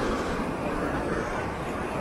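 Steady rushing noise of sea surf and wind on the microphone, with a low rumble.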